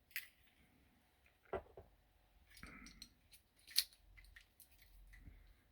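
Faint, scattered small metallic clicks and scrapes from a Toyota door lock cylinder and its key being handled and worked by hand, with a sharper click a little after a second and a half and another near four seconds.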